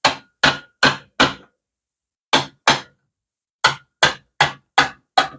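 Hammer blows driving a socket into the end of a motorcycle muffler pipe to open it out, in place of a muffler expander. Eleven sharp strikes in three runs: four, then two, then five, each run at about two to three strikes a second.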